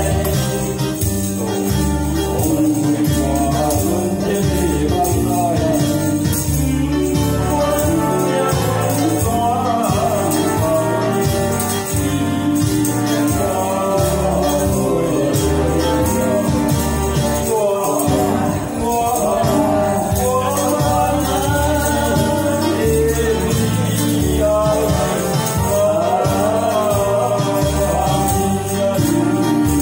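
A karaoke backing track with a steady beat, played over a PA, with an elderly man singing the melody into a microphone.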